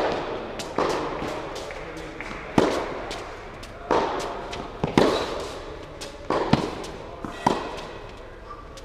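Tennis rally: a serve and then groundstrokes, the ball popping sharply off the rackets and bouncing on the hard court, with a hit or bounce every second or so. Each pop echoes through a large indoor tennis hall.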